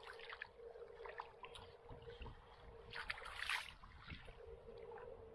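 Water sloshing and splashing around a large common carp held by hand in muddy shallows, with a louder splash about three seconds in. A faint steady hum runs underneath.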